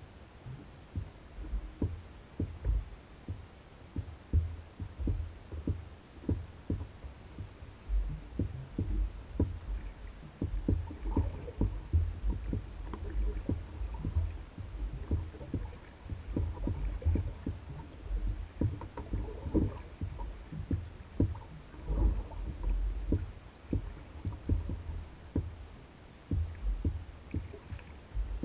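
Small waves lapping and slapping against the hull of an Old Town Guide 119 canoe as it bobs on the lake: a run of short, irregular low knocks, a few each second.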